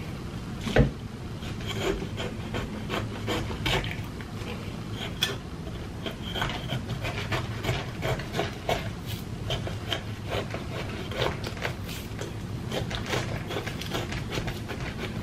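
Knife cutting and scraping through a jackfruit's fibrous flesh and rind: a run of irregular rasps and small clicks.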